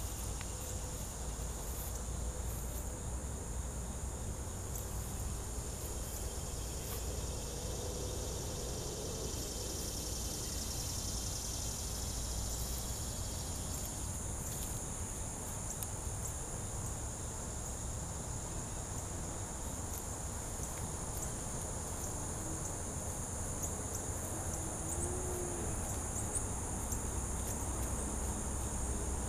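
Steady, high-pitched chorus of insects shrilling without a break, over a low rumble.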